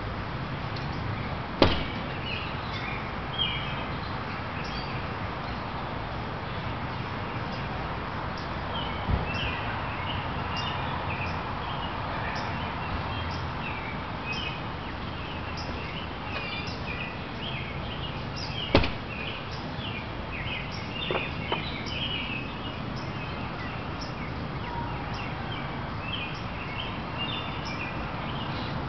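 Outdoor ambience: a steady low rumble under many short, high bird chirps, broken by a few sharp clicks, the loudest about two seconds in and near the middle.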